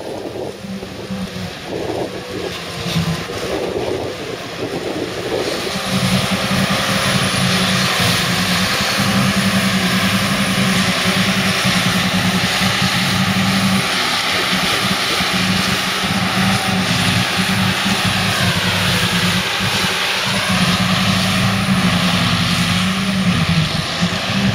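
Heavy diesel silage machinery running: a steady engine drone that grows louder about six seconds in, its pitch sagging briefly and then recovering about three quarters of the way through.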